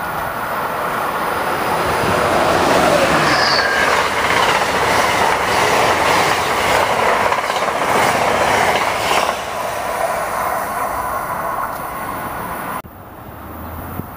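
Passenger train passing close by, growing louder to a steady rumble with rapid wheel clicks over the rail joints and a touch of wheel squeal, then easing off. The sound cuts off abruptly near the end and a quieter train sound follows.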